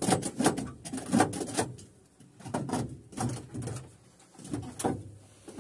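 Wasp nests being knocked and scraped off wooden attic roof boards with a stick: clattering knocks and scrapes in several short runs with brief pauses between them.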